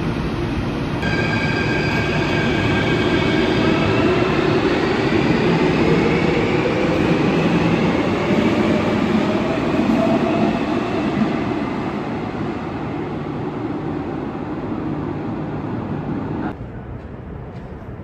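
Athens Metro train pulling out of an underground station: rumbling wheels under an electric whine that rises in pitch as it accelerates. The sound then dies away and ends abruptly in a quieter steady hum near the end.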